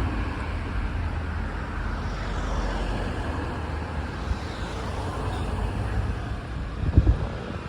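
Steady motor-vehicle and road noise, a continuous low rumble, with a brief cluster of low knocks about seven seconds in.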